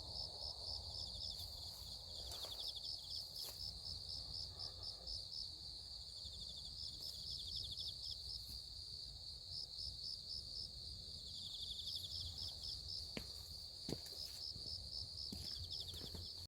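Crickets and other insects chirping: a steady, rapid, high-pitched pulsing chirp, joined now and then by a second, slightly lower trill. There are a couple of faint clicks about three-quarters of the way through.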